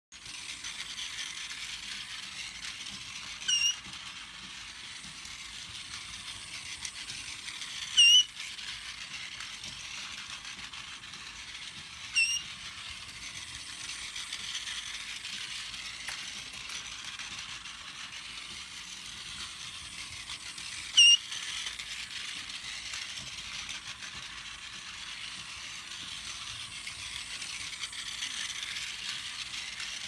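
Toy train in a tin running steadily on its track, its mechanical whirr rising and falling in level every five or six seconds. Over it, a green-cheeked conure gives four short, sharp chirps spaced several seconds apart, the second and fourth the loudest.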